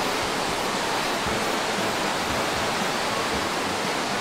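Steady rush of falling water from a waterfall, an even noise that does not change.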